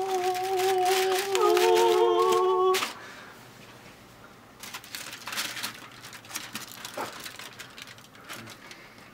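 A steady held note, with a second, higher note joining about one and a half seconds in, stops suddenly near three seconds. Then aluminium foil crinkles quietly as it is peeled back off a baking dish.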